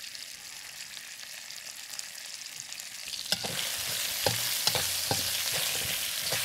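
Onion, ginger and tomato ketchup sizzling in a hot stainless steel wok. About three seconds in a metal spatula starts stirring: the sizzle grows louder, and the spatula clinks and scrapes against the wok several times.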